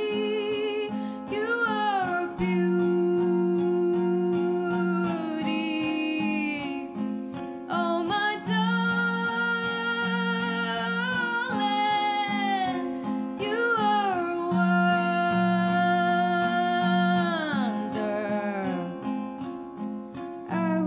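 A woman singing long, gliding and wavering notes over a strummed classical guitar.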